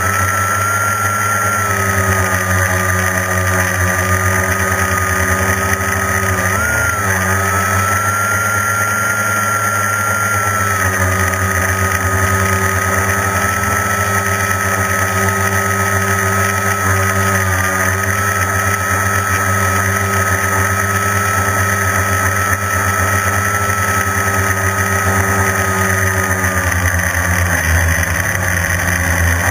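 Quadcopter's electric motors and propellers whining at a steady pitch, heard from the onboard camera. The pitch rises briefly about seven seconds in and sags slightly twice later on as the throttle shifts.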